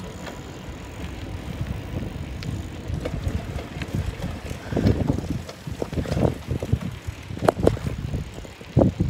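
A bicycle being ridden on asphalt: steady low rumble of the knobby tyres with wind buffeting the microphone, and a few sharp knocks about halfway through and near the end.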